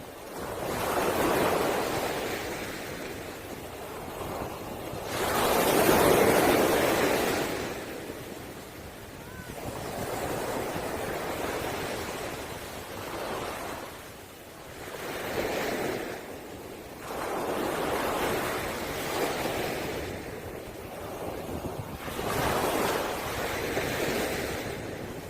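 Sea waves breaking on a pebble beach, surging and washing back in about six swells, the loudest about six seconds in.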